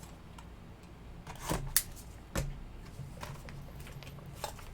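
A few light clicks and taps, scattered over several seconds, as a sealed trading-card box is handled before its shrink wrap is opened.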